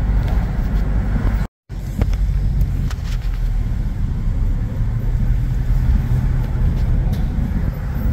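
Steady rumble of a moving car's engine and tyres on the road, broken by a brief cut to silence about a second and a half in.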